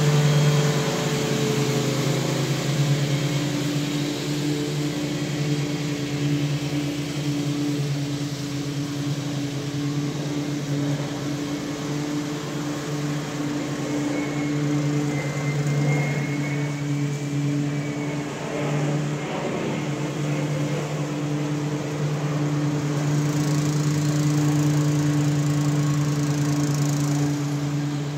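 Honda 270 cc single-cylinder engine running at a steady speed, with a few slight dips in level.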